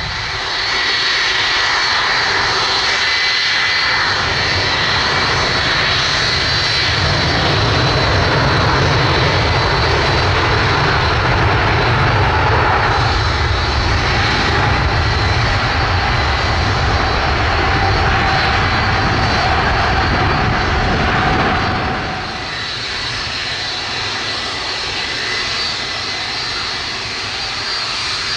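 The four jet engines of an Airbus A380 running loud and steady on the runway, with a deep rumble under a high whine. About 22 seconds in, the sound drops to the quieter jet whine of a taxiing Boeing 757.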